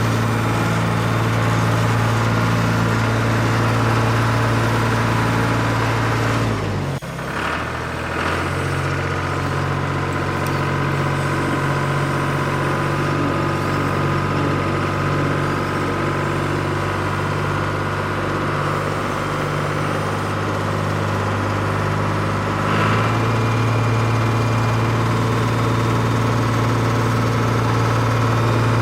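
Motor of a radio-controlled model excavator or tractor running with a steady engine-like hum. About seven seconds in it dips briefly and settles at a different pitch, then shifts back at about twenty-three seconds.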